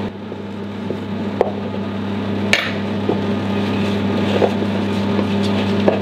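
Metal spoons clicking and scraping against a batter bowl and mini cupcake cases while batter is spooned out, a few separate clicks with the sharpest about two and a half seconds in, over a steady low hum.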